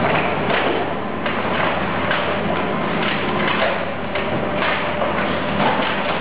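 Car-dismantling work: a steady machine hum under continual clattering and scraping of metal, with irregular knocks.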